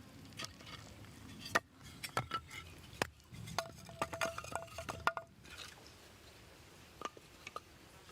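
Cookware and utensils knocking and clinking, with a cluster of short metallic rings about halfway through, then a few sparse clicks.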